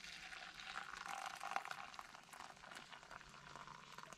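Hot water being poured into a mug to make instant coffee: a trickling splash that tails off about two seconds in, with small clicks.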